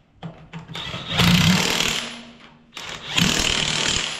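Cordless impact wrench running on the wheel nuts of a tractor's rear wheel, refitting the wheel. It runs in two bursts of just under a second each, about a second in and about three seconds in, with a few short blips before the first.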